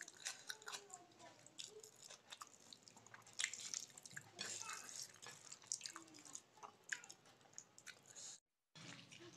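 Close wet eating sounds of rice and dal eaten by hand: fingers squelching as they mix and scoop the rice, and chewing, made up of many small wet clicks. The sound cuts out completely for a moment near the end.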